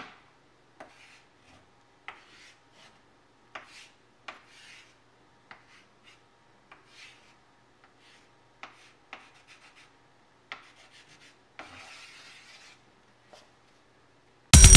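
Irregular short scratching and scraping strokes, one or two a second, with one longer rasp about three-quarters of the way through. A loud burst of music cuts in at the very end.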